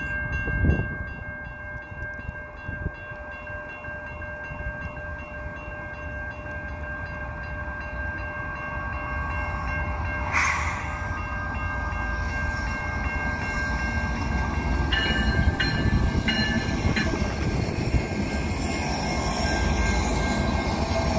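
Railway crossing bell ringing steadily as two CN GE ET44AH diesel locomotives running light approach and pass. Their low engine rumble grows louder through the second half.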